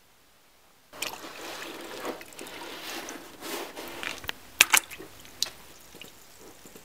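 Wet, squishy crackling of wood glue being smeared and wiped along cedar strips. It starts about a second in, with a few sharp clicks around the middle.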